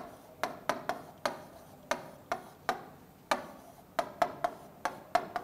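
Marker pen writing on a whiteboard: a quick, irregular run of ticks and taps, several a second, as the tip strikes and strokes the board.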